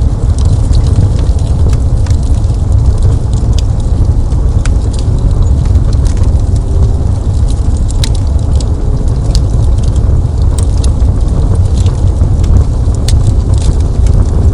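Fireplace fire burning: a steady low rumble with scattered sharp crackles and pops.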